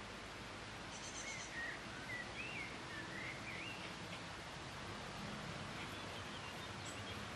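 A songbird singing a faint warbling phrase from about one to four seconds in, with a few fainter notes near the end, over a steady outdoor hiss.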